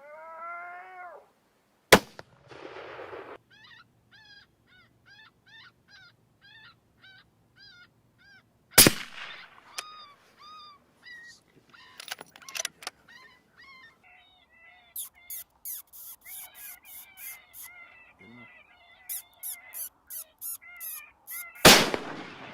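Three rifle shots, about two, nine and twenty-two seconds in. Between them come strings of short, high, repeated yelping cries from an animal, or from a predator caller, and a wavering cry at the very start.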